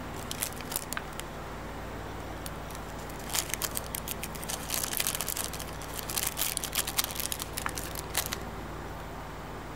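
Crinkling and rustling of thin saa (mulberry) tissue paper as small watch movement parts are wiped dry with it, in irregular crackly bursts, busiest from about three seconds in until near the end. A steady low hum runs underneath.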